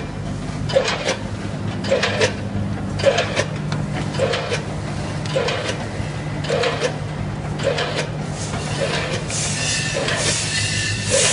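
Rice pillow-bag packing machine with a multihead weigher running: a steady mechanical hum under a regular clack-and-thud that repeats about once a second, the machine's packing cycle. A hiss builds up near the end.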